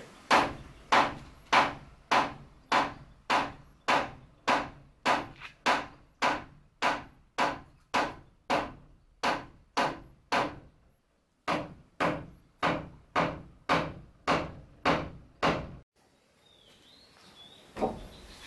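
A hammer striking wood in a steady run of blows, a little under two a second, with a short pause partway through and one last knock near the end.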